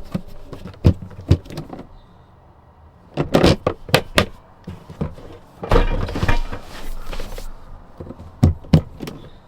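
Handling noises from getting cooking gear out in a small space: a run of sharp knocks and clicks, with a longer rustling clatter and a low thud about six seconds in.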